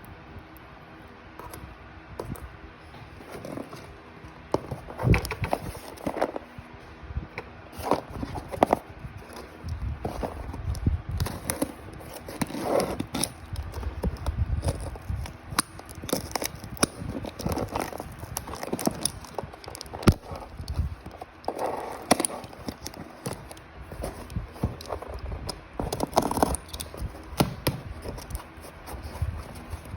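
Items and packaging being handled: irregular crinkling, scraping and light knocks, coming and going throughout.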